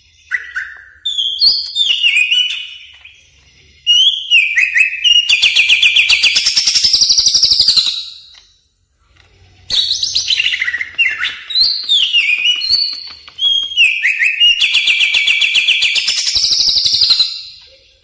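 Cucak ijo (green leafbird) singing: runs of clear whistled notes stepping down in pitch, each run ending in a long, very fast trill; the phrase comes twice, with a short pause between.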